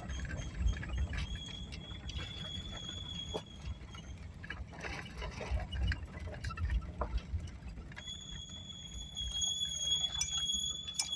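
A van driving, with a steady low road rumble and light clicks and rattles. A thin, steady high-pitched squeal is heard for the first few seconds, drops out, then returns about eight seconds in.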